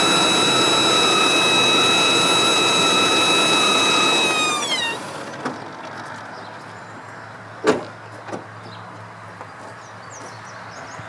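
A 1997 Chevrolet 5.7 L Vortec V8 running with a loud, steady high-pitched whine, a fault that only appears once the engine has warmed up and seems to come from the top middle of the engine. About four and a half seconds in, the engine shuts off and the whine drops in pitch and dies away. A single sharp clack follows a few seconds later.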